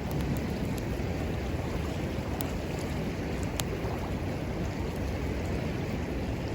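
Steady rushing of a flowing river, with a wood fire crackling: a couple of sharp pops about two and a half and three and a half seconds in.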